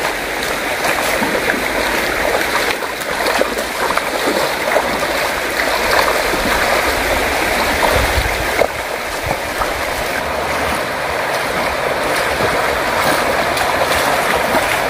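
Shallow river running fast over stones, a steady rushing of water, with irregular splashes of feet wading through it.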